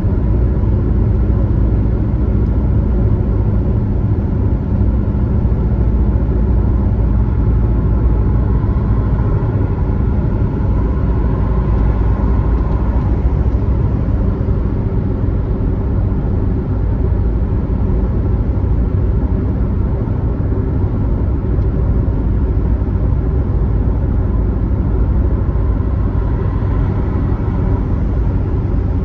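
Steady rumble of a car driving at highway speed, engine and tyre noise running evenly without change.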